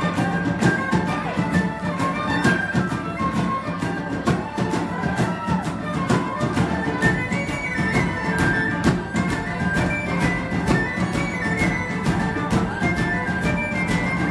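Live band playing a fast Celtic jig: flute and violins carry a quick melody over a steady, driving drum beat of about four strikes a second.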